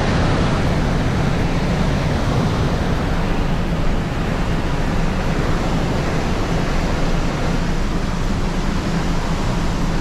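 Steady rush of water from a waterfall pouring through rock.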